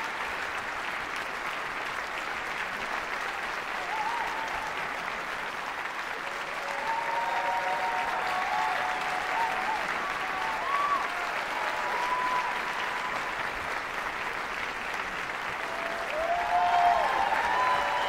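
Theatre audience applauding steadily. Shouts and cheers rise over the clapping about seven seconds in, and the applause swells again near the end.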